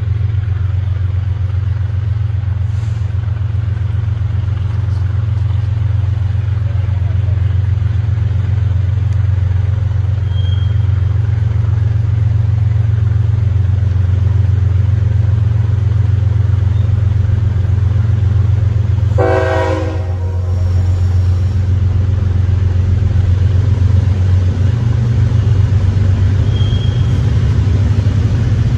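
Freight train led by a BNSF diesel locomotive approaching, its engines giving a loud, steady low drone. About two-thirds of the way through the locomotive's horn sounds one short blast.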